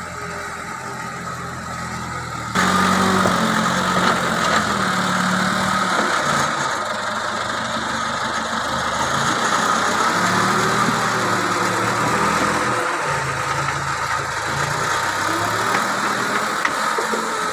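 JCB 3CX backhoe loader's diesel engine running steadily close by, getting suddenly louder about two and a half seconds in.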